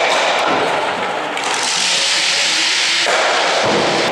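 An ice stock's running sole sliding across a hard lane after being thrown: a loud, steady rushing hiss that turns brighter about a second and a half in and dies away about three seconds in as the stock slows to rest.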